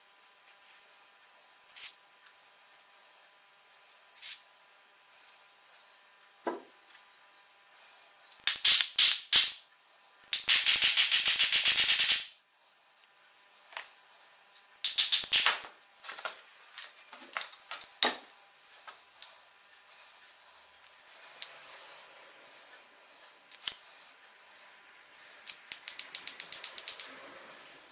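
Metal handwork on a sewing-machine gear assembly: scattered clicks and knocks, with a loud two-second hiss of spray lubricant about ten seconds in. Hammer taps on the part follow a few seconds later, and a quick run of rattling clicks comes near the end.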